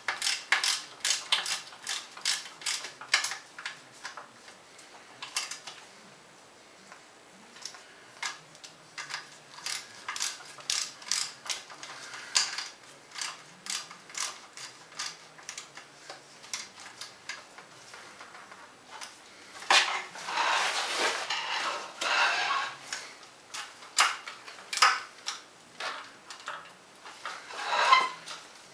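Socket ratchet clicking in short runs as the lower unit's mounting screws are tightened in a crisscross order. About twenty seconds in, the clicks come faster and closer together for a couple of seconds.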